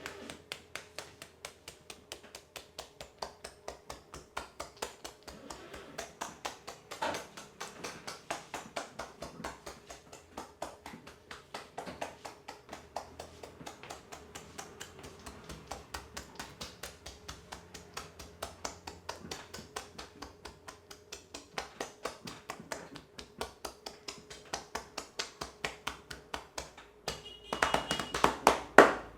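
Hands rapidly tapping and patting on a head during an Indian champissage head massage, in a fast, even rhythm of several strikes a second. The strikes grow louder and denser near the end.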